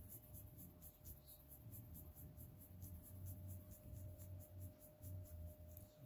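Near silence: room tone with a faint, rapid high-pitched ticking, about five ticks a second, over a low hum.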